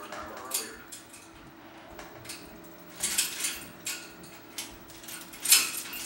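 Timneh African grey parrot in its cage making a series of short, sharp clicks and noisy sounds, irregularly spaced, the loudest about five and a half seconds in.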